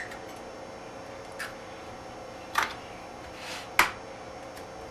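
Eggs being cracked on the rim of a small glass bowl: four sharp taps and cracks of shell on glass, spaced a second or so apart, the last two loudest.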